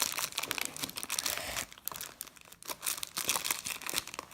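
Plastic packaging crinkling and crackling as it is handled, busiest in the first second and a half, then more scattered.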